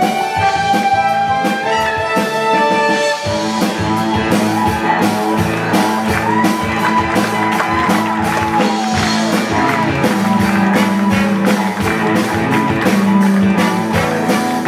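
Live pop-rock band music: keytar and electric guitar over a backing band. The drums and fuller bass come in about three seconds in.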